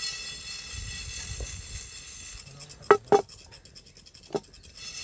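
A frying pan of whole spices being handled on a stone wood-fire hearth while they dry-roast. About three seconds in come two sharp knocks close together, then another about a second later, over a steady high hiss.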